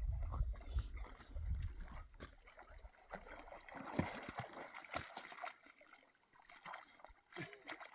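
Lake water splashing and trickling around a wading dog, in scattered small splashes, with a low rumble in the first two seconds.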